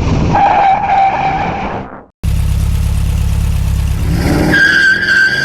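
Edited truck sound effect: a steady engine rumble under a held horn tone for about two seconds, a brief cut to silence, then the rumble returns and a rising glide leads into a higher, pitch-shifted horn tone near the end that falls away in steps.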